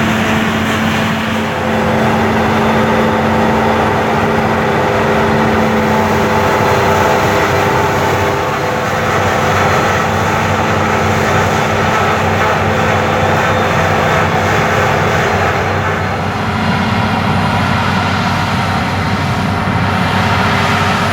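CLAAS Lexion 750 combine harvester's Caterpillar C13 six-cylinder diesel and threshing machinery running steadily under load while harvesting rice. Several steady tones sound over a dense mechanical hiss. Near the end the tones change and the higher hiss fades.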